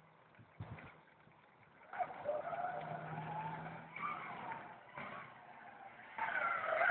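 Zip line trolley wheels running along the steel cable with a faint whine from about two seconds in, as a child rides across.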